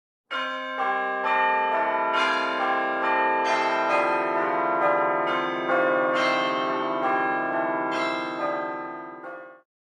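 Church bells pealing, many strikes overlapping into a dense ringing, fading near the end and then cut off abruptly.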